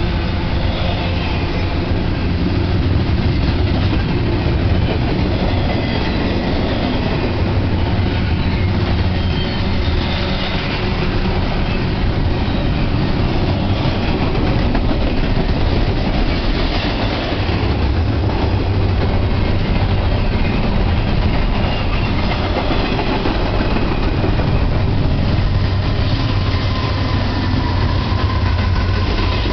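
Double-stack container train rolling past, its steel wheels rumbling steadily on the rails. Near the end a mid-train diesel locomotive, a distributed power unit, comes by and its engine joins the rumble.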